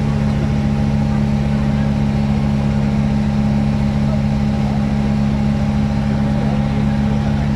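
A small river boat's engine running at a steady speed while under way, a constant low drone.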